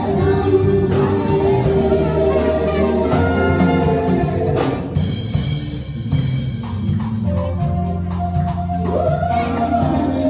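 Live gospel band: lead and backing singers over keyboard, a low bass line and drum kit. The singing thins out around halfway, leaving mostly the band, and a voice comes back in near the end.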